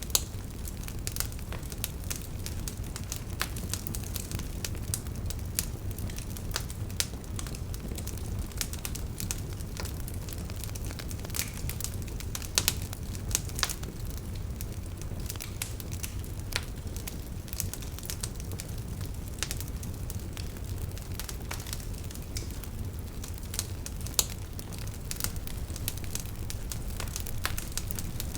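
Wood fire burning in a fireplace: a steady low rumble with irregular crackles and a few sharper pops.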